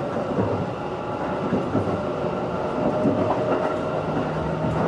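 Running noise of a JR 211 series electric multiple unit heard from inside the car: a steady rumble of wheels on the rails with a few clicks. A steady hum joins about three seconds in, and a lower hum about a second later.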